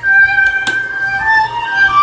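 Brazilian funk song playing loudly through PC speakers: an instrumental stretch with a high, held melody line stepping from note to note over an evenly pulsing low beat.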